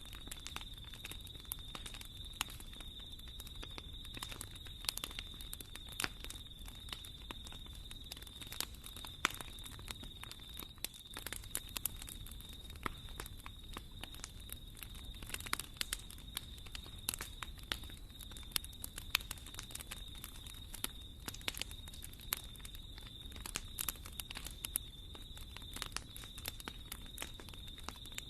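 Wood fire in a fireplace crackling, with many irregular sharp pops and snaps over a low rumble of flame. A steady faint high-pitched tone runs underneath.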